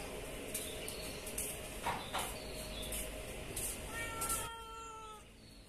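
A cat meows once, a drawn-out call about four seconds in that falls slightly in pitch. There is a short knock about two seconds in.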